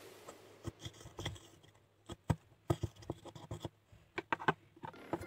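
Irregular sharp clicks and short scratches from a small metal tool picking and gouging into a horse chestnut, loosening crumbs of its white flesh.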